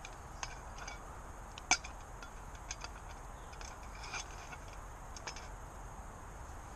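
Sticks burning in a small wood-burning camping stove under a frying pan, crackling with irregular sharp clicks and one louder pop about two seconds in. A steady low rumble of distant motorway traffic lies underneath.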